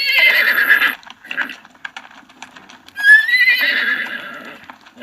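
Horse whinnying twice: a call about a second long at the start and a longer, louder one beginning about three seconds in, its pitch wavering, with scattered short knocks in between.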